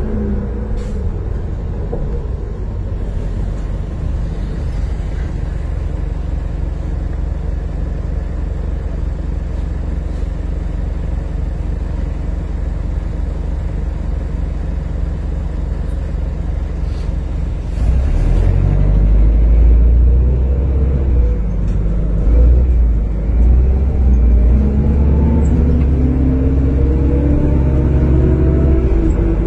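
Inside the cabin of a 1995 New Flyer D40LF bus: its Detroit Diesel Series 50 engine and Allison transmission give a steady low rumble, with a falling whine at the start as the bus slows. About two-thirds of the way through the engine gets louder and a whine rises again and again as the bus pulls away and accelerates.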